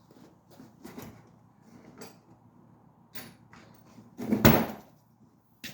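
Faint clicks and light knocks of tools and brake parts being handled, then one loud clunk about four seconds in.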